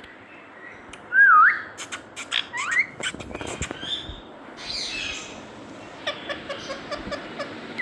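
Indian ringneck parrot whistling and squawking: a loud whistled note that dips and rises about a second in, a rising whistle near three seconds, a harsh squawk near the middle, then a run of quick repeated chattering notes.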